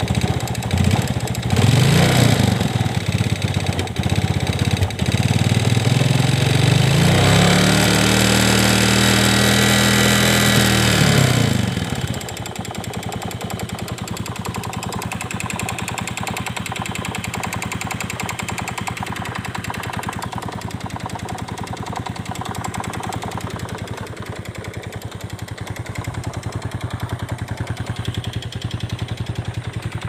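A Yamaha Vega Force fuel-injected motorcycle's single-cylinder four-stroke engine running. It is blipped about two seconds in, held at higher revs for several seconds, then settles to a steady idle. Through it runs a ticking rattle like a worn cam chain, though the cam chain and piston are new; the mechanic suspects the piston, possibly needing the cylinder honed, but has not confirmed it.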